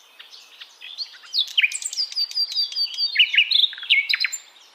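A songbird singing a rapid, varied song of chirps, sweeping whistles and short trills, faint at first, then loud from about a second in, stopping just before the end.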